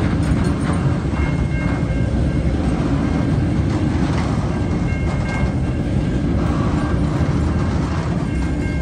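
Freight train's loaded container flat wagons rolling past at low speed, about 20 km/h: a steady, loud rumble of steel wheels on the rails. Faint high steady tones sit over the rumble.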